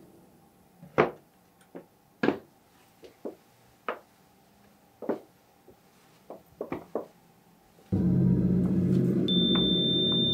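About a dozen sharp knocks and taps at irregular spacing, from the wooden box being set down and footsteps. About eight seconds in, a loud low electronic drone cuts in abruptly, and a steady high-pitched tone joins it about a second later.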